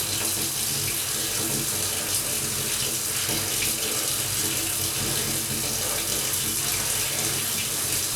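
Kitchen tap running steadily, water pouring without a break.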